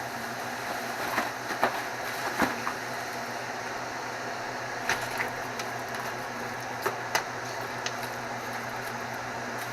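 Snow crab pieces clicking and knocking against the shells and pot as they are handled and dropped in, over a steady hiss and hum from the boiling pot on its burner. The knocks come in short clusters, a few in the first three seconds and more between about five and eight seconds in.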